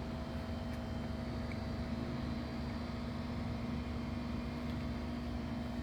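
Steady low mechanical hum over constant background noise, with no distinct events.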